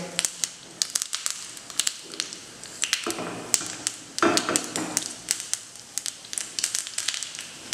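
Chana dal and mustard seeds frying in hot ghee in a small steel pan: a steady sizzle with frequent irregular sharp pops and crackles. It swells louder twice, about three and four seconds in.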